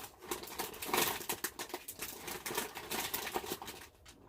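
Packaged snacks rustling and crinkling as they are handled and sorted through by hand, with irregular light clicks and taps.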